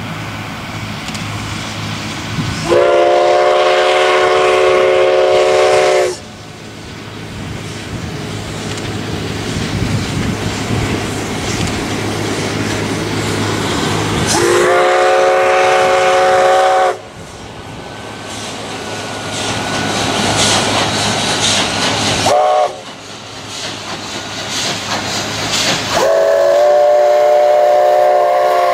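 Steam locomotive ETR #9's chime whistle sounding the grade-crossing signal: long, long, short, long, each blast a chord of several notes. Between blasts the passing train's running noise and wheels on the rails grow louder.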